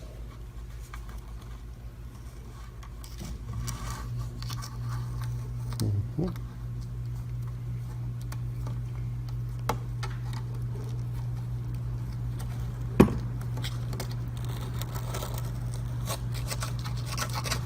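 Razor blade scraping old silicone caulking off the vacuum housing, in scattered short scratchy strokes over a steady low hum, with one sharp click about 13 seconds in.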